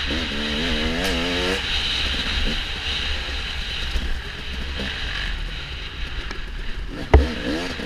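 Off-road racing engine revving up and down over the terrain, its pitch rising and falling quickly, easing off in the middle and picking up again near the end, with a steady low rumble underneath. A single sharp knock comes about seven seconds in.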